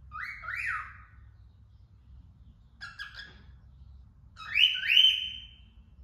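Female cockatiel whistling calls to wild birds outside: a pair of rising whistles near the start, a short burst of chirps about halfway, then a louder pair of rising whistles, each held briefly, near the end.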